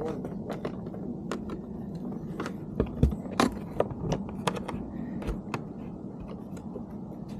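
Small metal parts and hand tools clinking and clattering as they are handled, a string of irregular sharp clicks and knocks, loudest about three seconds in.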